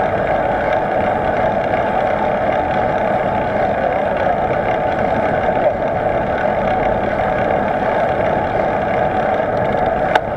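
Steady rush of wind over the camera's microphone while riding a bike at speed, with a single sharp click near the end.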